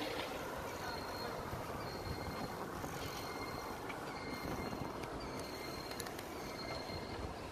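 Steady rushing noise of a bicycle ride on an asphalt street: tyres rolling and wind on the microphone, with a faint high tone coming and going and a few light clicks.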